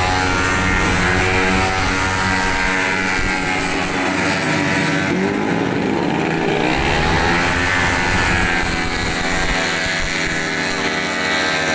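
Several tuned race-scooter engines running hard at high revs. Their pitches overlap and sweep up and down as the bikes accelerate, back off and pass.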